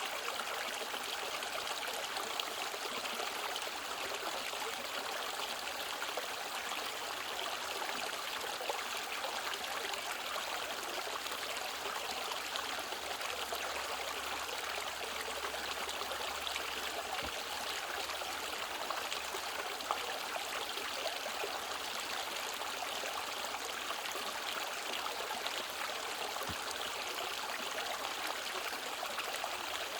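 Mountain valley stream flowing over rocks, a steady, even rush of water.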